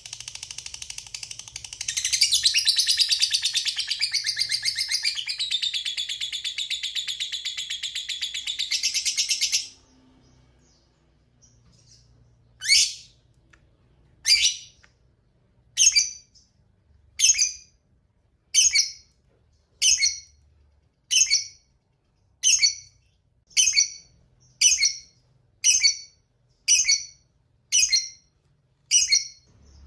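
Lovebird giving a long, rapid, high chattering trill (the 'ngekek panjang') that runs without a break for nearly ten seconds, then stops. After a short pause it gives a steady series of short, sharp single calls, about one every second and a half.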